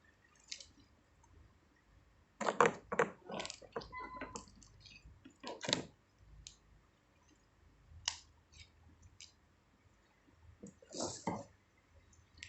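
Small items and packaging being handled: a few short clusters of clicks and rustles with quiet gaps between.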